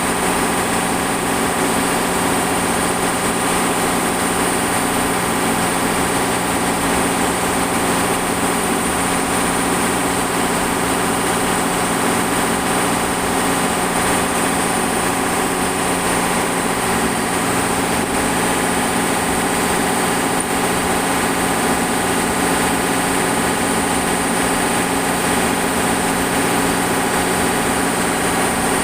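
Refrigeration machinery aboard a longline fishing vessel running steadily: an even mechanical drone with several steady hums and a thin high whine over it.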